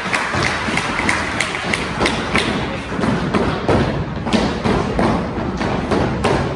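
A run of thuds and taps, a few a second and unevenly spaced, over a steady background noise.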